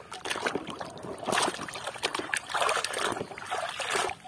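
Water sloshing and splashing irregularly as a plastic toy bus is swished and rubbed by hand in a basin of foamy, muddy water.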